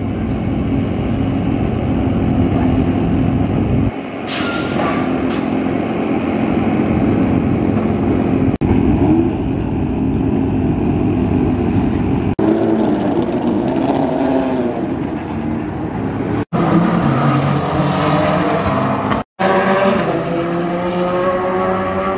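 Corvette C8.R race car's flat-plane-crank V8 running loudly in the pit lane, mixed with other race cars' engines. Near the end the engine notes climb steadily in pitch as a car accelerates. The sound cuts out abruptly a few times.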